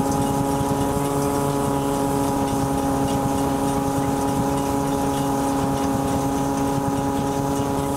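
Threshing machine running steadily: an even, unchanging mechanical hum.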